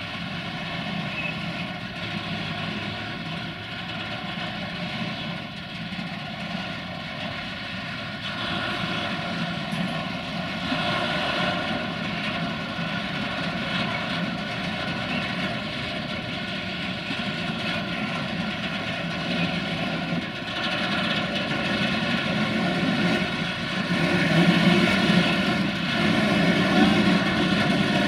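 Diesel train engine running with a steady, many-toned drone that grows louder near the end.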